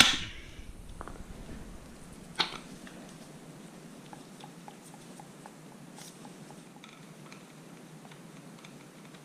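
A last mallet strike on the Fox 40 fork's loosened foot nut right at the start, ringing briefly, to break the lower legs free of the damper and air shafts. A single knock follows about two seconds in, then faint small clicks of the fork lowers being handled.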